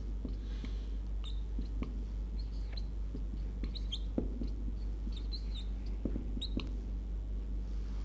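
Marker pen squeaking on a whiteboard while writing Arabic script: a string of short, high squeaks and light taps, several seconds apart, as letters are drawn.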